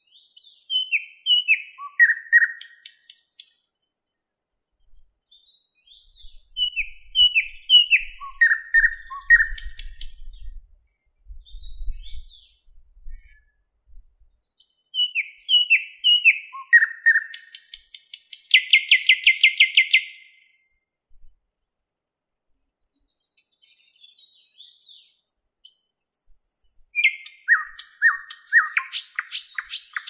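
Thrush nightingale singing: four separate song phrases a few seconds apart, each opening with a short series of descending whistled notes and running into a fast dry rattle of clicks. The third phrase ends in a long rapid trill of repeated notes.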